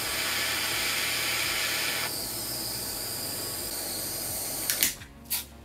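Hand-held butane torch flame hissing steadily as it heats a steel pick-and-place nozzle tip; the hiss softens about two seconds in. The hiss cuts off near the end, with a few sharp clicks.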